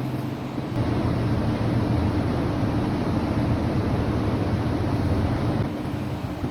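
Induction melting furnace running as it melts copper: a steady low mechanical drone with a hiss over it, a little louder from about a second in and easing off near the end.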